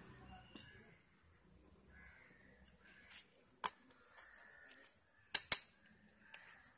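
A steel spoon clinking against a stainless steel tray and small steel containers: a few sharp clicks, the loudest a quick pair about five and a half seconds in. Faint caws of crows sound in the background.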